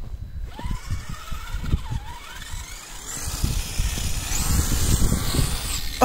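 Kyosho Blizzard EV RC snow vehicle's electric motor whining, rising and falling in pitch as it is throttled through snow. A rough scraping noise runs underneath and grows louder over the last few seconds.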